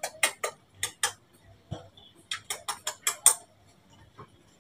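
A run of sharp, quick clicks or smacks in short irregular groups, the busiest cluster about two to three seconds in.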